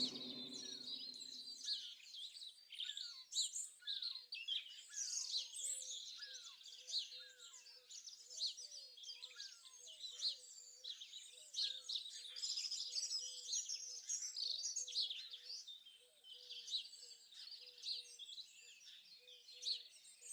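Dawn-chorus-like bird song: many birds chirping and trilling together, with one low short note repeating steadily from about eight seconds in.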